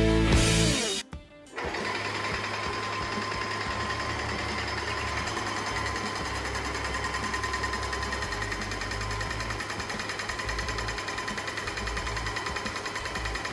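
Music stopping about a second in, then a small machine or power tool running steadily with a rapid, even clatter.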